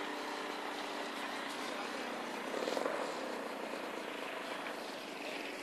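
Saito FG-84R3 three-cylinder radial four-stroke engine of a giant-scale RC model warplane running in flight, heard at a distance as a steady propeller drone that swells briefly a little under three seconds in.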